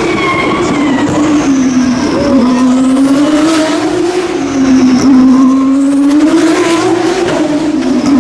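Open-wheel single-seater race cars' V6 engines running hard and loud, the engine note wavering up and down in pitch as cars pass close by.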